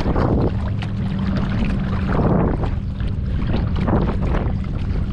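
Wind buffeting the microphone of a camera on a kayak's bow, with choppy water splashing and slapping against the hull in irregular bursts. A low steady hum runs under it and stops about two and a half seconds in.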